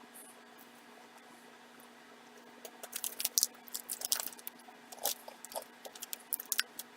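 Crunching on a seasoned Japanese rice cracker (senbei): a quiet start, then irregular crisp crunches of chewing from a few seconds in.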